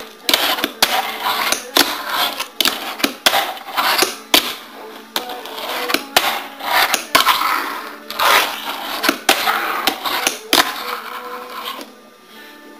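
Wooden fingerboard being popped and landed on a wooden tabletop: quick, uneven clacks of the deck's tail and its small wheels striking the wood, a few each second, dying away near the end.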